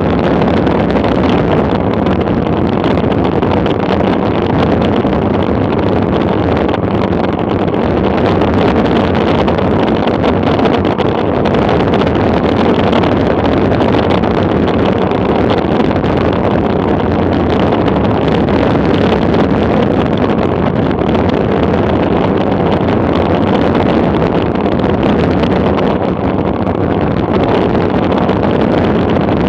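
Steady, loud wind rushing over a bicycle-mounted camera's microphone during a fast downhill road descent, with tyre noise on the asphalt underneath.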